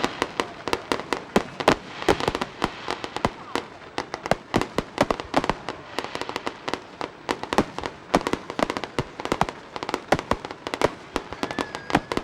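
Fireworks display: a dense, irregular barrage of sharp bangs and crackling reports, several a second, without a break.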